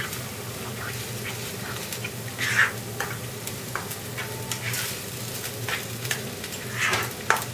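A spatula stirs and scrapes a thick onion, tomato and coconut paste frying in oil in a non-stick pan, over a low sizzle. A few louder scrapes come about two seconds apart.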